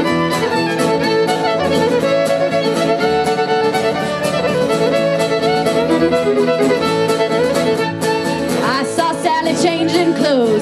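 Live band music in an instrumental passage, with a bowed violin carrying the melody over a steady rhythmic backing. There are sliding notes near the end.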